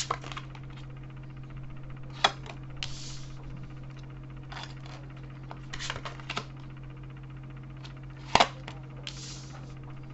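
Tarot cards being drawn and laid out on a table: a few sharp taps and clicks, with two brief swishing slides, over a steady low hum.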